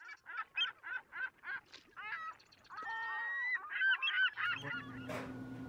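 Birds calling: a quick run of short, evenly repeated calls, then a denser tangle of overlapping calls. A low steady hum comes in near the end.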